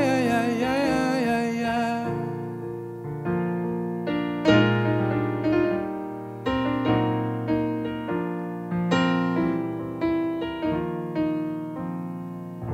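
Digital keyboard played with a piano sound, a slow run of struck chords and single notes, each dying away. A man's held, wavering sung note ends about two seconds in, leaving the keyboard playing the song's close alone.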